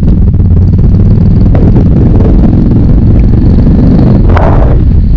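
Motorcycle engine running at a steady speed while riding on a wet road, a loud low rumble throughout, with a short hiss about four seconds in.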